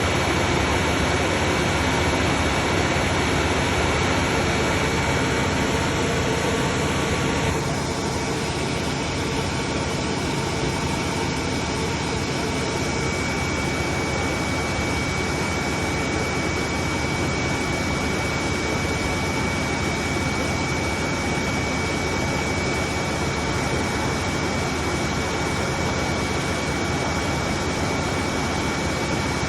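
Gladel washing machine spinning at high speed: a steady, loud whir with a thin high whine over it. About a quarter of the way in, the highest whine cuts out and the sound shifts slightly.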